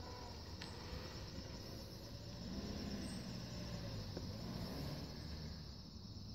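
A car pulling away and driving off: a faint engine note that rises as it accelerates about two and a half seconds in, then fades near the end.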